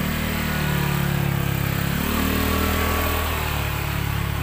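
Motor scooter engine running close by at low speed, a steady low hum whose pitch shifts about two seconds in.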